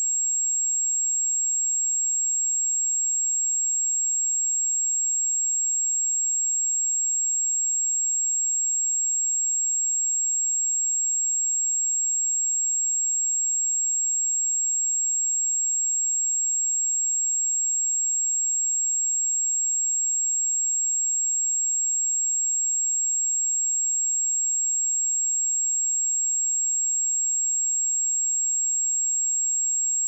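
A 7585 Hz sine-wave test tone: one steady high-pitched pure tone, unchanging in pitch and loudness.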